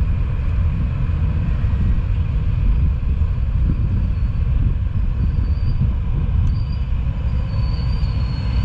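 Steady wind rumble and road noise from riding a motor scooter, picked up by a camera microphone, with the scooter's engine running underneath. A faint high whine comes and goes in the second half.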